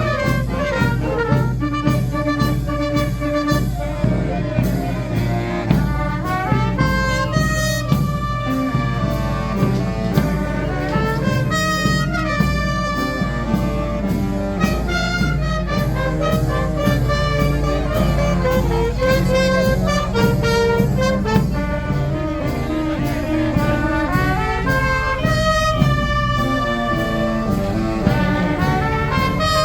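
Fanfare brass band playing a lively tune: trumpets, trombones and saxophones carry the melody over a steady marching beat of drums.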